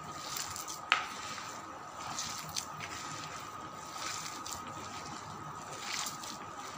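A hand kneading and squeezing wet grated bottle gourd mixed with gram flour in a plastic bowl: soft wet squishing, with one sharp click about a second in.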